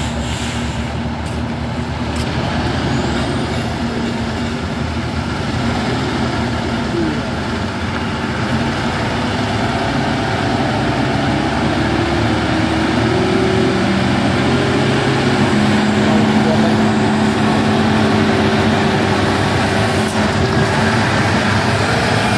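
Diesel engine of a Hino six-wheel box truck pulling under load up a steep grade on a fresh attempt after failing the climb. It runs steadily and grows gradually louder as the truck crawls closer.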